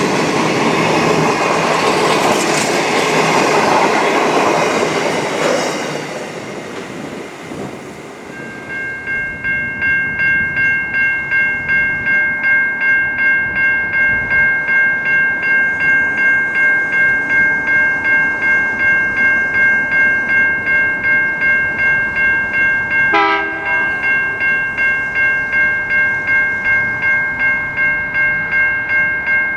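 A passing train, loud at first, fades out over the first several seconds. From about eight seconds in, a railway warning bell rings steadily, about two strikes a second.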